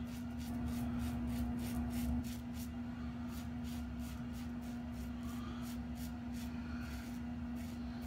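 An iKon 102 safety razor with a Bluebird blade scraping stubble in short strokes, about four a second. Under it runs a steady low hum from a house furnace, easing slightly about two seconds in.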